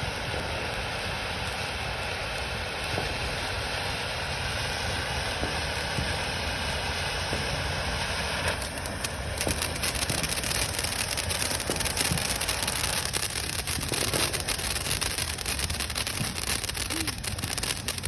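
Fireworks hissing steadily, then from about halfway in a dense, rapid crackling.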